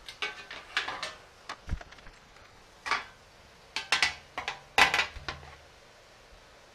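Thin sheet-metal cookie sheet clanking and rattling as it is handled against a steel bench vise and a freshly bent steel rod: a string of sharp, ringing metallic knocks over about five seconds, with one dull thud near the middle.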